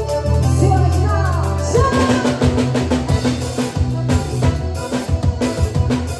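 Live forró band music: a piano accordion holds long chords, then about two seconds in the drums come in with a quick, even beat under the accordion.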